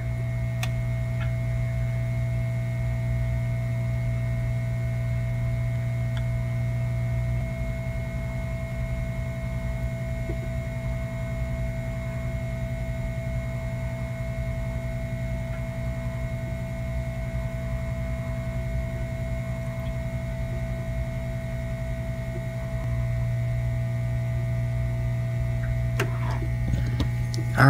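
Hot air rework station blowing onto a laptop logic board to reflow a replacement GPU VCORE power regulator chip: a steady blower hum with a faint steady whine. The low part of the hum eases off a few seconds in and comes back up a few seconds before the end.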